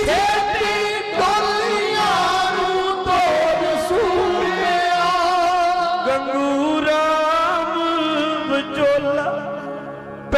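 A man singing a slow Sikh devotional song into a microphone, drawing out long, wavering held notes over a steady accompanying drone. The voice eases off near the end.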